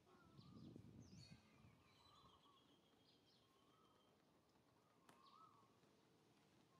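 Near silence with faint bird calls: a short wavering whistle about every two to three seconds, and a few higher chirps in the first half. A faint low rumble in the first second or so.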